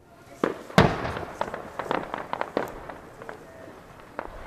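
Aerial fireworks shells bursting. There is a sharp bang about half a second in and a louder bang just after it, followed by a dense run of quick crackling pops that thins out over the next two seconds.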